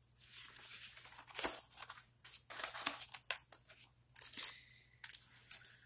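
Pages of a large picture book being turned and handled: paper rustling and crinkling in several short bursts.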